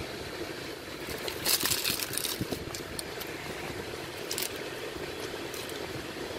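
Paper taco wrapper rustling and crinkling in short bursts, about one and a half seconds in and again near four and a half seconds, over the steady hum of a car interior.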